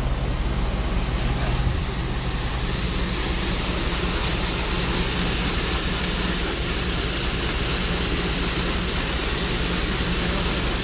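Steady machinery running during corn unloading, from the truck dumping into a grain auger, with a constant high hiss over a low hum; the hum shifts to a lower, rougher tone about two seconds in.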